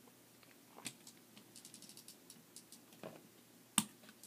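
Lego Technic motorcycle handled on a wooden desk: a run of quick, faint gear clicks as it is rolled back to wind its pull-back motor, with a few knocks and one sharper knock near the end as it is set down.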